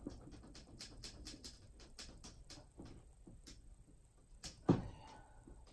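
Marker pen scratching and squeaking on a board in quick, uneven strokes as something is written or drawn, with one louder knock near the end.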